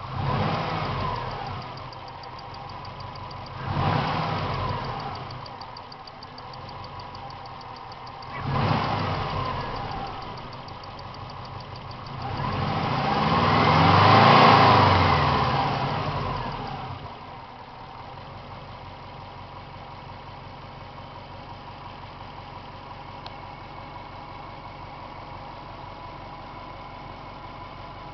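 Warm 1998 Subaru Impreza GT's turbocharged flat-four engine being revved: three short blips of the throttle, then a longer rev that climbs and falls back over about five seconds, after which it settles into a steady idle.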